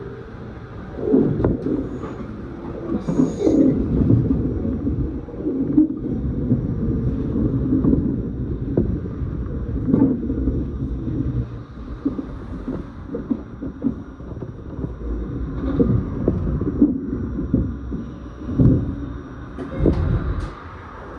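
Commuter train running on the rails, heard from inside the carriage: a steady low rumble with frequent wheel knocks and clatter, swelling and easing.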